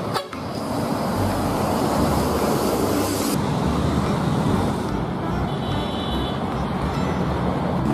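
Road traffic noise from large buses driving past: a steady rumble of diesel engines and tyres, with the hiss changing abruptly about three seconds in and again at five.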